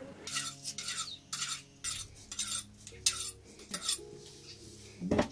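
Kitchen knife scraping and cutting in short, sharp repeated strokes, about two a second, as food is cut by hand.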